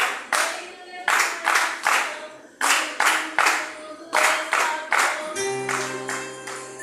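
Congregational worship music: hand clapping in a quick rhythm with faint singing. About five seconds in, a sustained instrument chord comes in.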